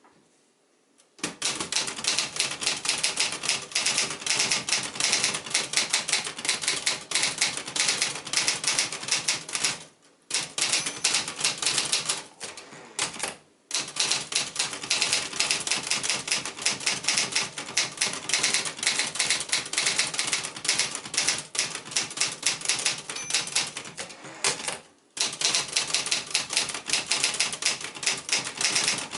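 A 1967 Olivetti-Underwood 21 manual typewriter being typed on fast, a rapid run of keystrokes starting about a second in. The typing breaks off briefly three times.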